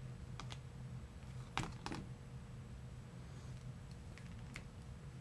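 Plastic action figures being handled: a few soft clicks and taps scattered through, over a low steady background hum.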